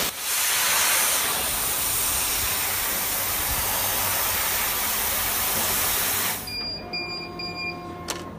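Laser cutter cutting 12 mm MDF, with a steady loud hiss of the air-assist jet blowing at the cutting nozzle. The hiss cuts off about six seconds in as the cut finishes, leaving faint high-pitched tones that break on and off and a few light clicks.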